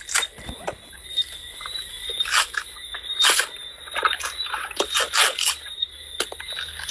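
Coconut husk being torn apart with the teeth: a run of irregular sharp ripping and crackling sounds.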